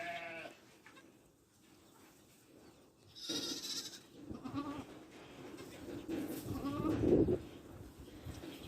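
Boer goats bleating in separate calls: a wavering bleat at the start, a short one about four and a half seconds in, and the loudest near seven seconds. A brief rustling hiss comes just after three seconds.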